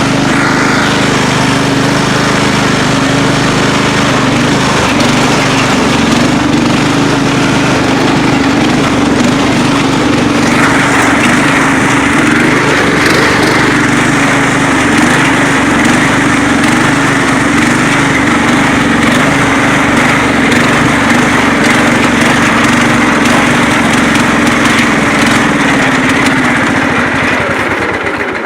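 Craftsman riding lawn mower's small petrol engine running steadily, with a higher whine joining about ten seconds in. The engine cuts out at the very end, which the owner puts down to running out of gas.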